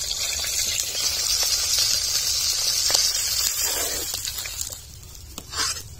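Fish pieces sizzling in hot mustard oil in an iron karahi, a steady frying hiss that fades about four to five seconds in as the pieces are lifted out.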